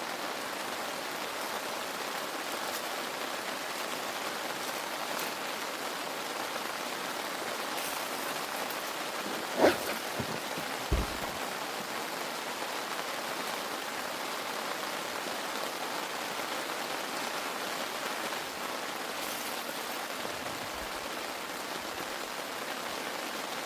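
Steady rain falling, with two short knocks about a second apart near the middle.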